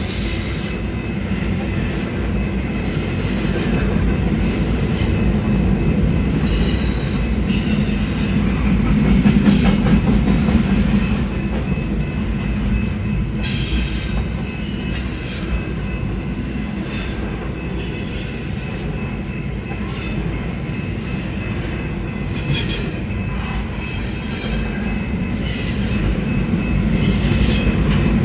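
Freight railcars rolling past with a steady low rumble, while high-pitched wheel squeals come and go every second or two.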